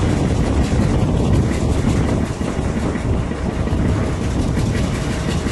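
Diesel-hauled passenger train running on a curve, heard from an open carriage window: a steady low diesel engine note under wheel and coach running noise.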